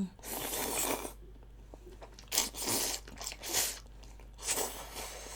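Close-miked eating sounds: biting and chewing with the mouth a little open, so the chewing smacks, in about five separate noisy bursts, the first and longest lasting about a second.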